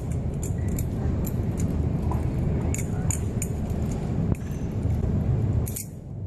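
Butterfly knife (balisong) being flipped: its metal handles clack and click at irregular intervals, several times a second in places. A steady low rumble runs underneath and is louder than the clicks.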